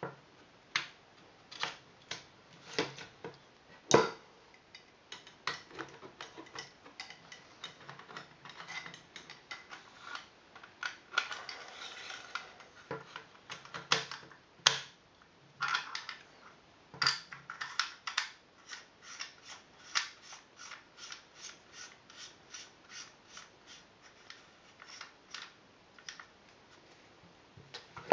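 Metal parts of a Viper Tech gas-blowback M4 airsoft rifle clicking and knocking as it is reassembled: the inner barrel and hop-up chamber are pushed into the receiver, then the outer barrel is fitted. In the second half the clicks come as a quick, even run, about three a second.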